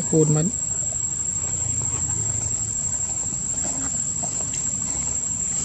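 Insects keeping up a steady, high-pitched drone on one unbroken tone.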